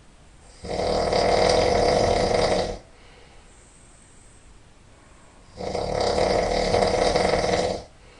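A person snoring loudly: two long snores, each about two seconds, roughly five seconds apart.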